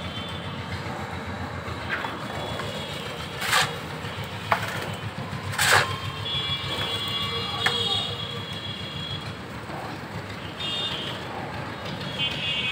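A shovel scraping and knocking through wet cement mortar several times, sharpest about a third of the way in and near the middle, over a steady low rumble.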